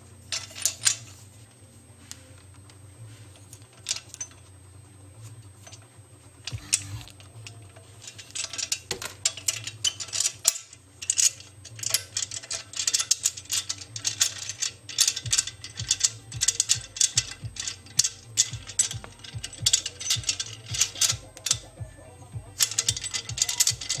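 The plastic and metal parts of an aluminium bicycle rack's hinged quick-release clamp being handled and worked by hand. A few separate clicks and knocks come first, then dense runs of rapid clicking and rattling from about eight seconds in, over a steady low hum.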